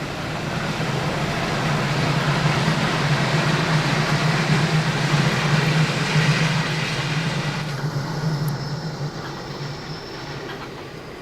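Empty container freight train rolling past, its wagons' wheels on the rails making a steady rumbling clatter. It is loudest in the middle and fades over the last few seconds as the train moves away.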